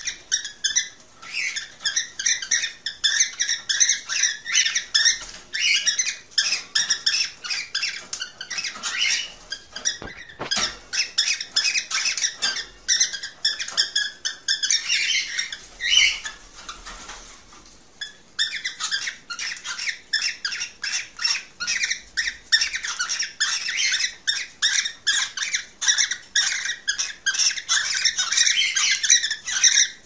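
Cockatiels chirping in a dense, continuous stream of short, high calls, several a second, with a brief lull about seventeen seconds in.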